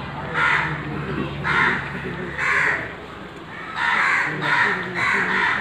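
A crow cawing repeatedly: about six harsh caws, roughly a second apart.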